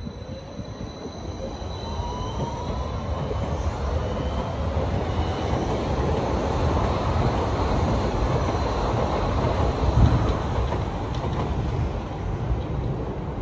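Berlin U-Bahn train pulling out of a station and accelerating away. Its electric motors give a rising whine over a heavy rumble of wheels on rail, and the rumble grows louder, peaking about ten seconds in.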